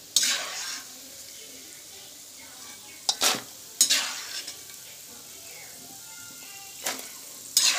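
Peanuts deep-frying in hot oil in a thick metal kadai, a steady sizzle, with a few sharp clinks as a slotted steel spoon scrapes and knocks against the pan and bowl while the golden-brown peanuts are scooped out.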